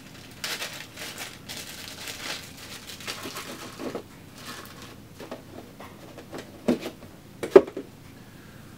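Packaging rustling and crinkling as a small telescope accessory box, the diagonal mirror's, is opened and handled by hand. In the second half come a few sharp knocks, the loudest one shortly before the end.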